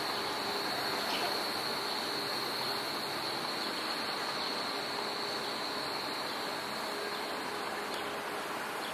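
Steady city street noise with a continuous high-pitched whine that fades away near the end.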